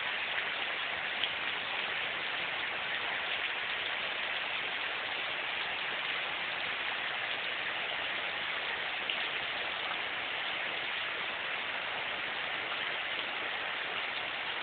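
Heavy rain pouring down steadily, a dense even hiss with a few faint drop ticks.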